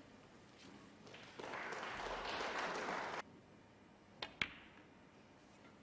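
A short burst of audience applause about a second and a half in, cut off suddenly a couple of seconds later. Then the sharp click of a snooker cue tip striking the cue ball, followed at once by the louder click of the cue ball hitting an object ball.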